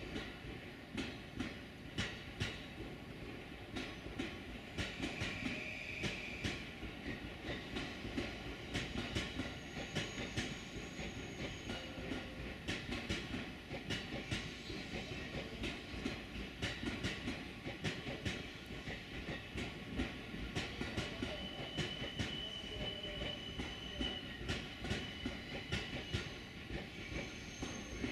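An electric train running past on the Tokaido Line, its wheels clacking over the rail joints in a steady run of clicks over a continuous rumble. A few brief, faint high wheel squeals come and go.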